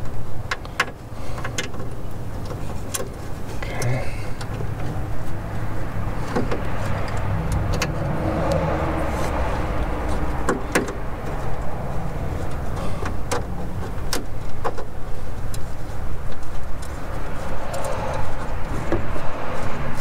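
Wiring and bullet connectors being worked into a plastic clip inside a car door: scattered sharp clicks and rattles over a steady low rumble that swells about halfway through.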